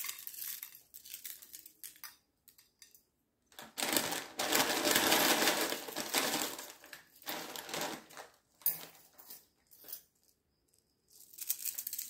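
Crisp dry flakes crackling as they are crushed by hand and dropped onto a plate of chaat, in several spells, with the longest and loudest crunching in the middle.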